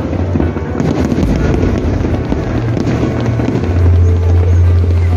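Aerial fireworks bursting and crackling continuously, over music with deep held bass notes that swell louder a little past halfway.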